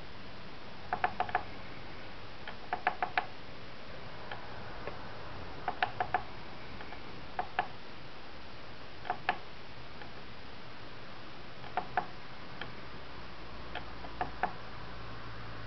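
Small sharp mechanical clicks in quick clusters of two to four, coming every one to three seconds at uneven spacing, over a faint steady hiss.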